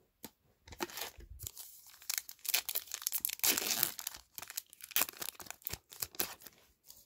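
Foil wrapper of a Topps Heritage baseball card pack being torn open and crinkled: an irregular run of rips and rustles that starts about a second in, is thickest in the middle and thins out near the end.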